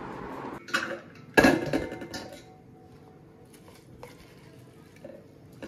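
Plastic vegetable-chopper bowl knocking against a stainless steel plate as chopped onion is tipped out: a sharp clatter about a second and a half in, with a few lighter knocks after.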